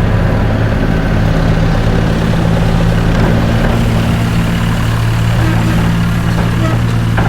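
Heavy vehicle engine idling steadily: a low, even hum that holds one pitch without revving.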